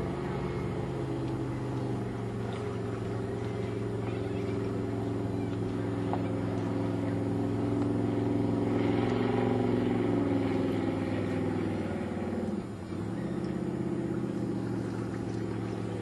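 Meos ski boat's 350 Chev small-block V8 running at speed as it passes, the steady engine note growing louder toward the middle. Near the end the note dips briefly in pitch and level, then picks back up.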